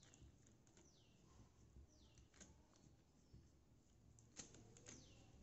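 Faint, near-silent background in which a bird gives a short falling chirp three times. Soft clicks and rustles come from a plastic sheet as a hand presses stuffed dough flat on it; the sharpest click is a little past four seconds in.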